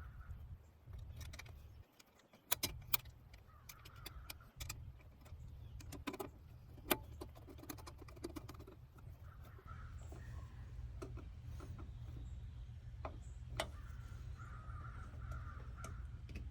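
Scattered metallic clicks and clinks as an AC capacitor's mounting bracket is fastened down in the outdoor condenser unit, over a steady low rumble.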